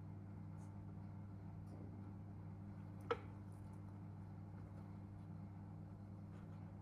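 Steady low hum in a quiet room, with a few faint light ticks and one short, sharp click about three seconds in.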